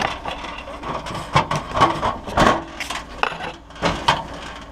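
Irregular clicks, knocks and rattles of a range hood's fan motor assembly being handled, as its quick-connect plug is worked loose.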